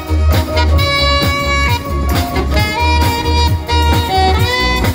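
Live band music: an alto saxophone carries the melody over drum kit, congas and bass with a steady driving beat, one note sliding upward near the end.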